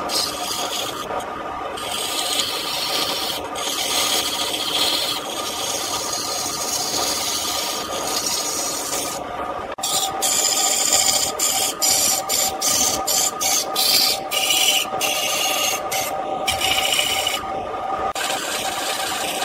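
Wood lathe spinning a wooden blank while a hand-held turning tool cuts it: a steady scraping hiss of the cut over the lathe motor's even hum. The cutting sound breaks off for a moment many times, most often in the second half, as the tool comes off the wood.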